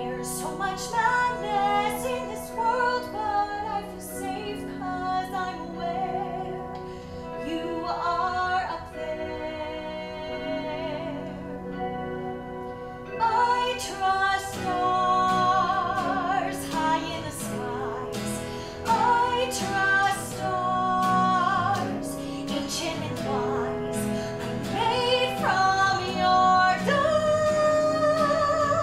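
A woman singing a musical-theatre song over instrumental accompaniment, with vibrato on her long held notes.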